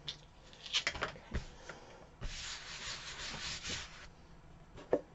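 A few light knocks about a second in, then nearly two seconds of steady rubbing and rustling of thin paper as a Mod Podge-coated calendar-paper cutout is brushed and handled on the craft mat.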